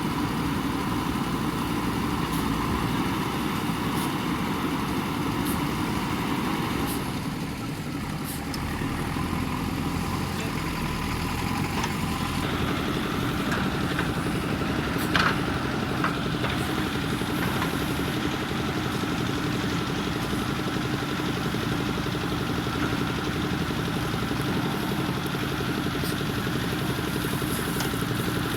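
JCB 3DX backhoe loader's diesel engine running steadily, with a sharp knock about halfway through.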